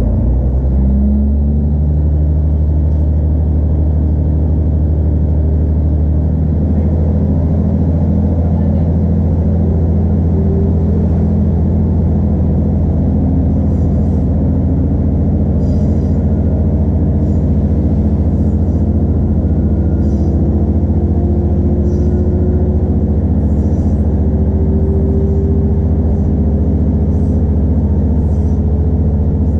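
Iarnród Éireann Class 2600 diesel multiple unit's underfloor diesel engine revving up as the train pulls away from a station, with a steady drone whose pitch rises slowly as the train gathers speed. Faint regular clicks join in about halfway.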